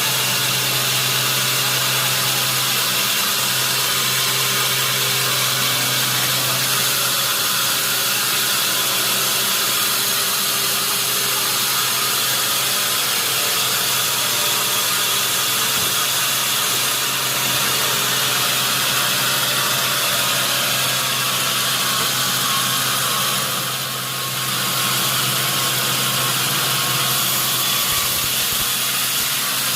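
Sawmill saw machinery running steadily: a loud, even hiss over a constant low hum, dipping briefly about 24 seconds in.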